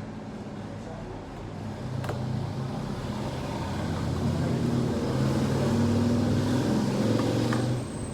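A motor vehicle's engine running nearby, growing louder over several seconds and then dropping away near the end.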